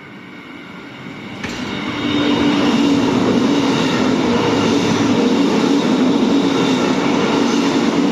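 A train passing close by. It grows louder and then jumps up sharply about a second and a half in, and settles into a steady, loud run of rail and wheel noise with a humming drone.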